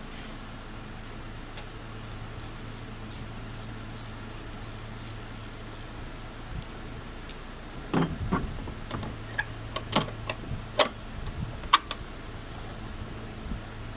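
Ratchet wrench clicking in a quick even run, about four clicks a second, on a car battery's fittings; then several sharp metal clinks and knocks, the loudest sounds, as the battery hold-down bracket is fitted.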